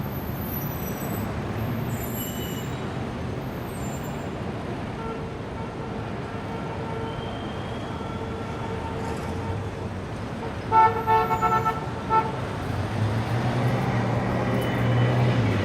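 Indian city street traffic: a steady mix of cars, motorbikes and auto-rickshaws passing, with a long horn note in the middle and then a quick series of short horn honks about eleven seconds in, the loudest sound. A heavier engine's low rumble grows near the end.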